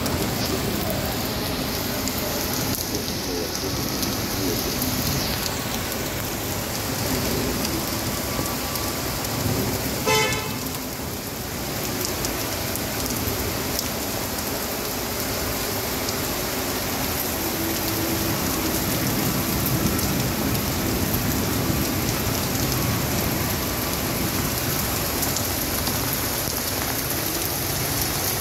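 Heavy rain pouring steadily onto pavement, with storm runoff streaming across the ground. About ten seconds in, a car horn gives one short toot.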